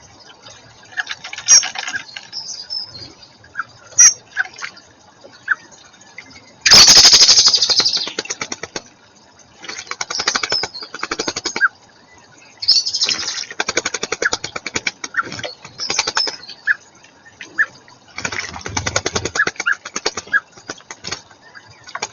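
Small garden birds fluttering their wings at a pond in repeated bursts a second or two long, the loudest about a third of the way in, with short high chirps between.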